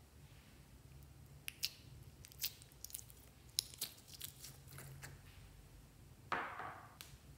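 Sticky clear slime with confetti peeling out of a small cup, giving a run of sharp crackling clicks and pops, then one short squelch about six seconds in as the lump is pressed down into the bowl.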